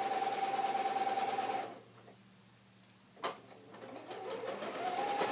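Electric sewing machine stitching a fabric strip: it runs steadily, stops for about a second and a half with a single click in the pause, then starts again and picks up speed.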